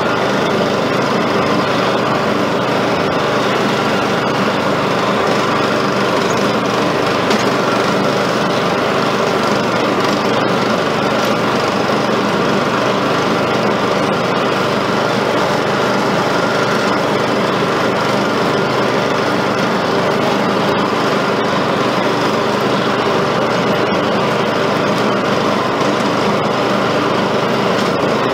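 Riding mower's small engine running steadily at a constant speed while cutting down overgrown grass and weeds.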